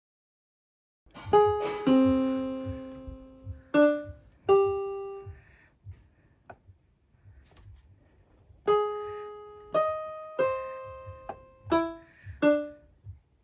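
Kittens walking across an electronic keyboard, their paws pressing keys: scattered single piano-voice notes at irregular times, each ringing and fading, over soft thuds of the keys being stepped on. The notes come in two clusters with a pause of a few seconds between them.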